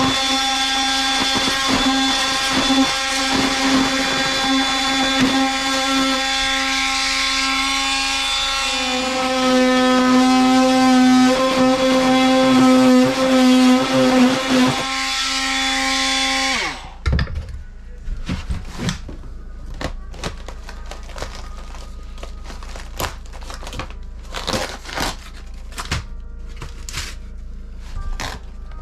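Power tool cutting into a thin luan wall panel: a steady high motor whine that shifts in pitch as it bites, then winds down about 17 seconds in. Scattered knocks and clatter follow as the cut panel is worked loose.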